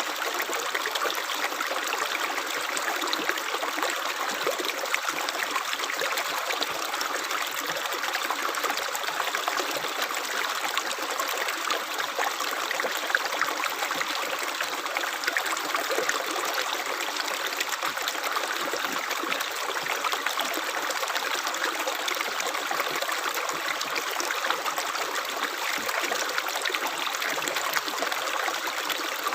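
Running water flowing steadily, a continuous splashing rush without pauses or changes.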